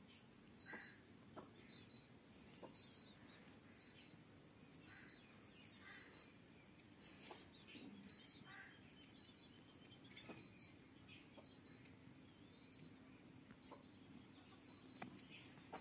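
Near silence, with faint bird chirps and a short high peep that repeats about twice a second.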